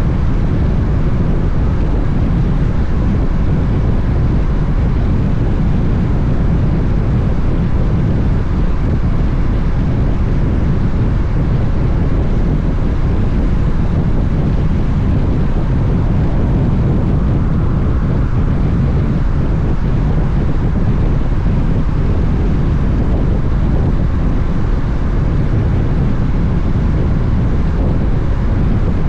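Steady wind rush on the microphone of a camera riding on a moving motorcycle, a low, even roar with the road and engine noise of the Honda X-ADV scooter under it.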